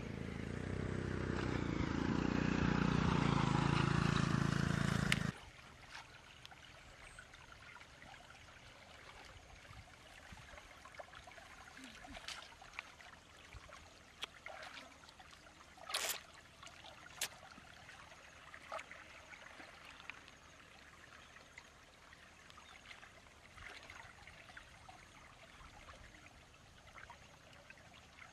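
A loud rushing noise for the first five seconds cuts off suddenly. After it, shallow water trickles steadily, with a few short splashes and knocks as hands work in the water and a bamboo fish trap is set in the channel.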